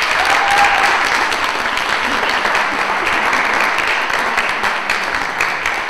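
Audience applauding: many people clapping together, dense and steady, thinning slightly near the end.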